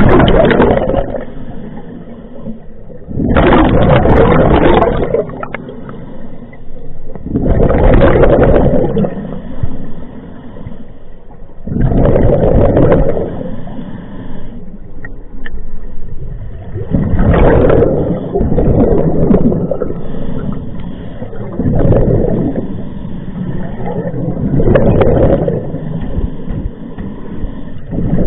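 Scuba diver breathing through a regulator underwater: a loud rush of exhaled bubbles about every four seconds, with a quieter rush between breaths.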